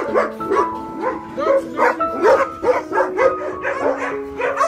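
A dog barking repeatedly, about two or three short barks a second, over background music with long held notes.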